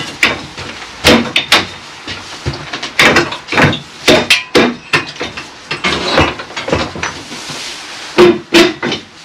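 Hammer knocking on a steel acrow prop, a dozen or so sharp metal strikes at an uneven pace, some ringing briefly.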